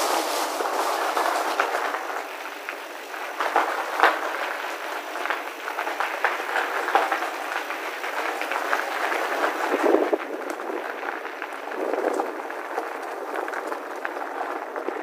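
Bicycle tyres rolling fast over a rough gravel path, a steady crunching rush with frequent knocks and rattles as the bike hits bumps.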